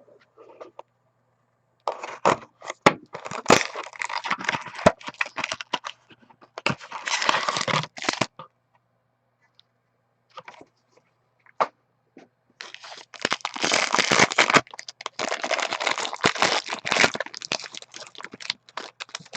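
Packaging on a sealed box of hockey trading cards being torn open. Wrapping rips and crinkles in three bursts, the last and longest from about two-thirds in, with sharp cracks and crunches among them.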